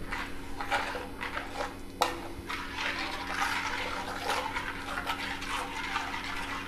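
A spoon stirring pineapple juice and sugar in a pan on the stove, the liquid swishing, with a couple of sharp clicks of the spoon against the pan.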